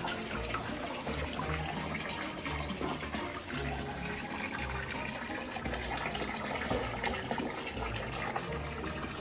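Water splashing and sloshing in a shallow tub as Asian small-clawed otters swim, dive and scramble about in it, a steady busy wash of water.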